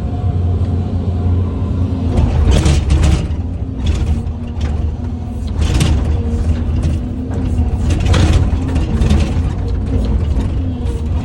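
Hyundai hydraulic excavator's diesel engine running steadily, with repeated clanking and scraping of the steel bucket on stone, loudest at several points.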